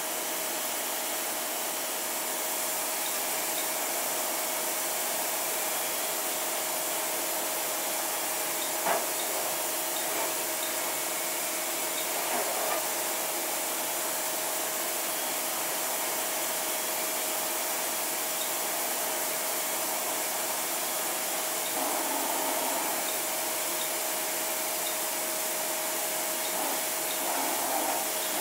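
Takisawa TMM-250 twin-spindle CNC lathe running under a function test: a steady machine hum and hiss with a constant whine, one sharp click about nine seconds in, and a few short swells of motor noise near the middle and end.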